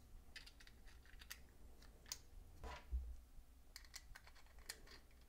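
Faint scattered clicks and small knocks of Quad Lock plastic mount parts being fitted together and a small Allen key tightening the centre bolt, with one louder low knock about three seconds in.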